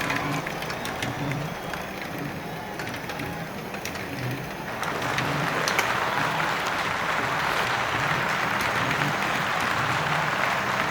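Crowd applause and cheering that swells about five seconds in, with scattered sharp clicks.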